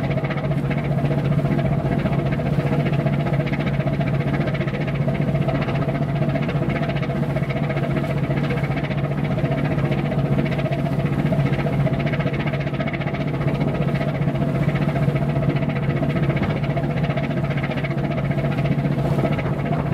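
Ship's diesel engine running at a steady speed: a constant low drone with several steady higher hums above it, unchanging throughout.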